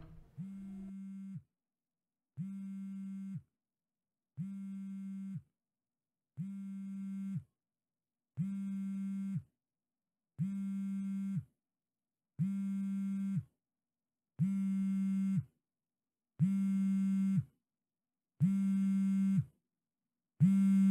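Mobile phone buzzing with an incoming call: a steady low buzz about a second long, repeating every two seconds, ten times, growing louder with each one.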